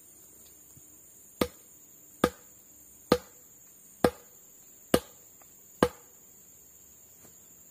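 Six sharp strikes of a tool chopping into wood, evenly spaced about a second apart, each with a short hollow knock.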